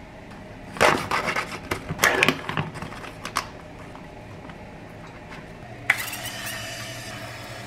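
Plastic packaging crackling in two loud bursts as a knife cuts open a plastic pasta tray, then a single click. About six seconds in, a cooking spray can starts hissing onto a nonstick frying pan with a sharp start, and the hiss carries on steadily.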